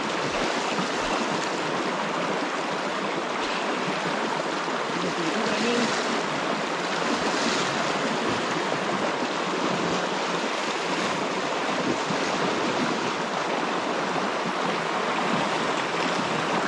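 Strong river current rushing steadily through shallow riffles, an even, unbroken rush of water.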